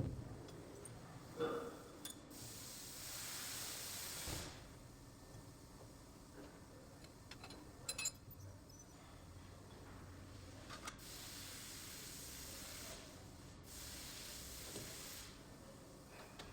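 A hissing jet in three bursts of about two seconds each, with a few light clicks between them.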